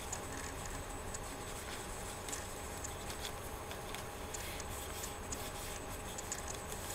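Quiet room tone: a steady low hum with scattered faint ticks and clicks.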